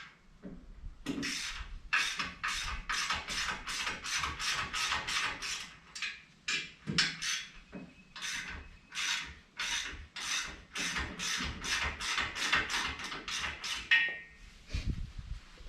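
Ratchet wrench worked in quick back-and-forth strokes, about three or four a second, tightening the step's mounting bolts, with two short pauses. It ends with a short metallic ring near the end.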